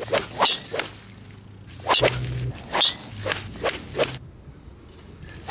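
Golf club swishing through the air: a rapid series of about eight sharp whooshes in the first four seconds, then quieter, with one more whoosh at the very end.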